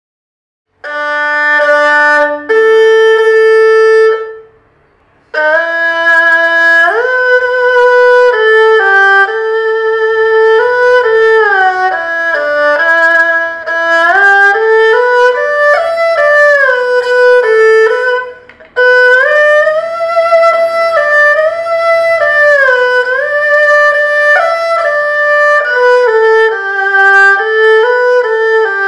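Erhu playing a solo melody, one bowed line with notes that slide from pitch to pitch. It starts about a second in with a few held notes, pauses briefly, then carries on.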